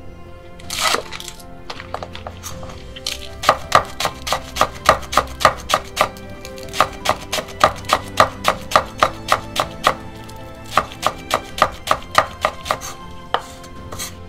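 Kitchen knife slicing green onions on a wooden cutting board: a rustle and a few scattered knocks, then a long run of quick, even chops, about three a second, with a short pause about ten seconds in.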